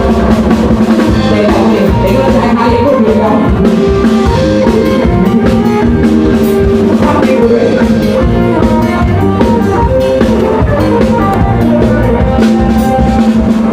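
Loud mor lam band music: a drum kit keeps a steady beat under a melody played over a constantly held drone note.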